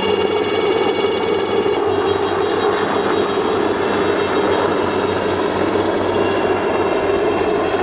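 Aérospatiale Alouette III helicopter close by: the steady high whine of its Artouste turboshaft engine over loud rotor and engine noise.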